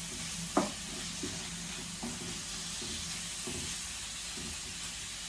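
Chopped mushrooms and vegetables sizzling in a small paella pan, a steady frying hiss. Short knocks and scrapes of a utensil stirring against the pan come every second or so, the loudest about half a second in.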